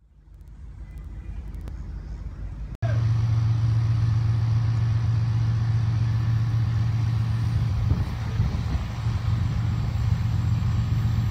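Steady low drone of Union Pacific diesel locomotive engines running. It fades in, then jumps louder at a cut about three seconds in.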